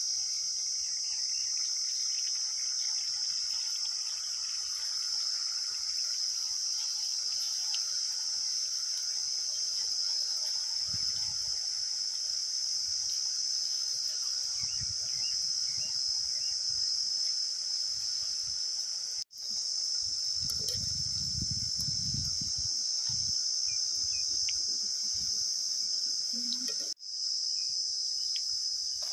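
Steady, high-pitched chorus of crickets, cut off briefly twice, with a low rumble about two thirds of the way through.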